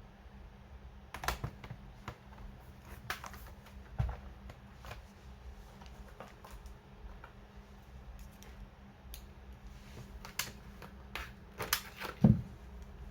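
Irregular clicks and taps of plastic parts as hands work on a laptop's keyboard and case, with a heavier knock near the end.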